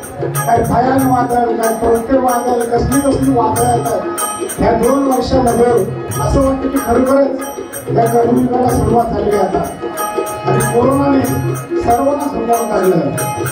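Marathi devotional bhajan: voices singing a chant-like melody over hand-drum accompaniment that keeps a steady beat.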